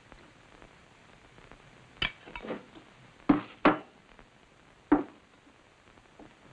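China dishes clinking and knocking as a cup, saucer and plate are handled and set down on a table: several sharp knocks between about two and five seconds in.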